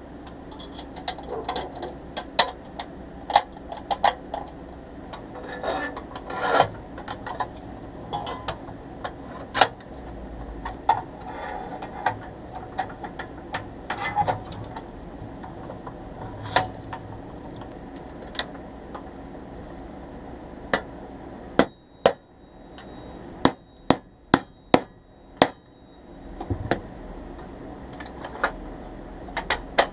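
Irregular sharp knocks, clinks and taps of pressed-steel toy loader parts being handled and fitted together during reassembly, with a few short bouts of light scraping.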